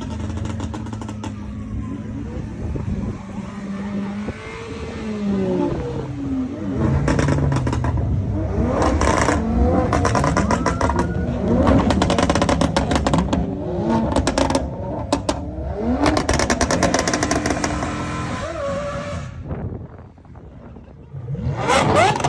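Cars driving past one after another and revving their engines, their pitch rising and falling. The revving is loudest from about seven seconds in until about nineteen seconds, drops away briefly, and another car revs hard near the end.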